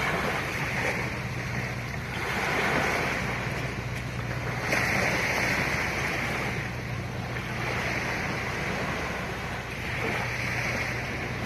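Sea waves washing and breaking in repeated surges, one every two to three seconds, over a steady low hum.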